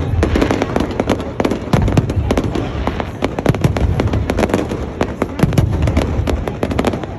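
Fireworks going off: a dense, continuous crackle of many sharp pops, several a second, over a low rumble.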